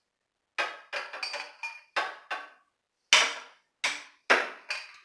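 Hand tools clanking against metal: about nine sharp, irregular knocks and clicks of a socket wrench and socket being fitted onto a bolt in an engine bay.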